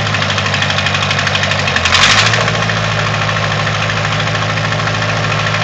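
The engine of a 1958-59 Case 310-B backhoe running steadily at idle. About two seconds in, its note shifts slightly and a brief loud rushing noise sounds for about half a second before the idle settles again.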